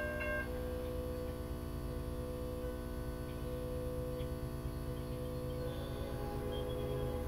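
Steady electrical hum from crossing signal equipment, with a low rumble underneath. A pulsed ringing tone, sounding about two to three times a second, stops about half a second in.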